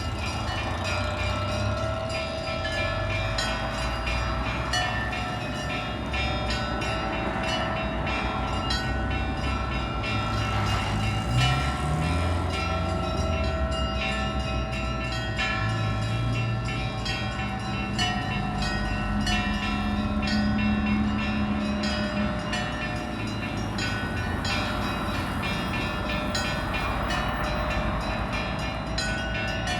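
Church bells ringing a continuous Easter peal, several bells together: smaller bells struck rapidly and repeatedly over the long ringing tones of larger bells.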